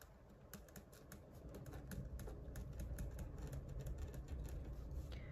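Faint, irregular clicking of keys being typed, with a low rumble that builds up about a second and a half in.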